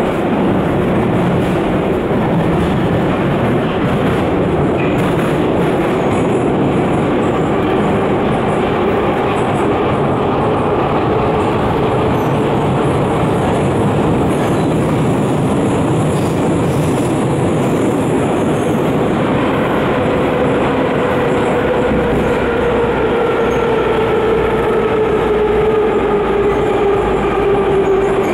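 Minsk metro train running, heard from inside the passenger car: a steady loud rumble and rattle of wheels on rails. In the last ten seconds or so a motor whine slowly falls in pitch as the train slows.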